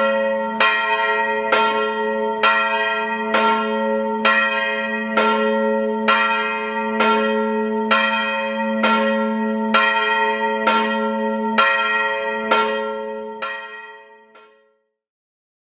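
The Martinella, the large bronze bell on Florence's Arnolfo tower, tolling about once a second, each stroke ringing over a steady low hum. The last strokes grow weaker and the ringing dies away near the end. These are the tolls rung to mark the liberation of Florence.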